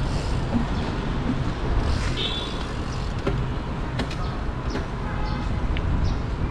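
Road and traffic noise with heavy wind rumble on the microphone, with a few short clicks and a brief high tone about two seconds in.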